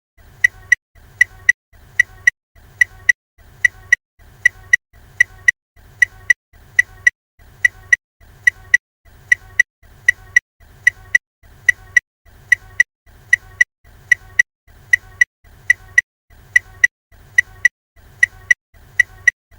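Ford Fiesta hazard warning lights flashing: the indicator's tick-tock sounds as a steady, even rhythm of paired clicks, about five pairs every four seconds.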